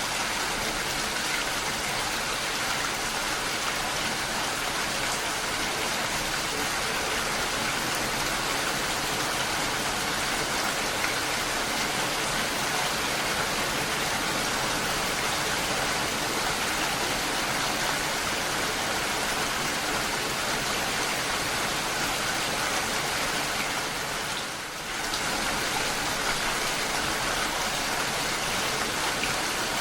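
Steady rain falling, an even hiss without thunder, with a brief dip in loudness late on.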